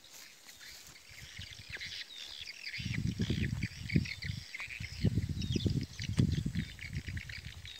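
Small birds chirping in a busy, rapid chatter of short high notes. From about three seconds in, irregular low rumbles come and go beneath them.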